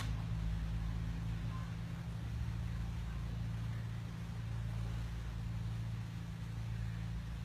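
Steady low mechanical hum made of a few fixed low pitches, with a faint even hiss above it.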